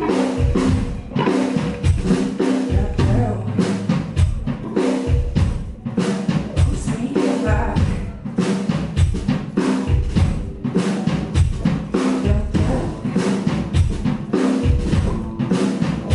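Live rock band playing, with a drum kit's kick, snare and cymbal hits keeping a steady, busy beat under sustained instruments.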